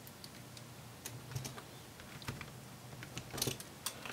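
Faint, irregular small clicks and taps from a small Phillips screwdriver and loose screws being handled over a laptop's plastic chassis, the driver tip being set into a battery screw near the end.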